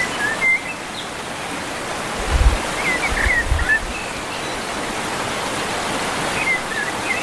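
Steady rushing noise, like running water, with a few short bird chirps scattered through it and two brief low thuds a little over two and three seconds in.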